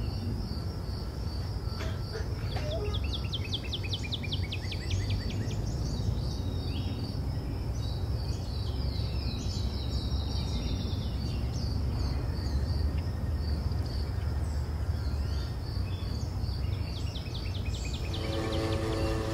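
Crickets chirping steadily in an even pulse, with birds singing short runs of falling notes over a low hum; music comes in near the end.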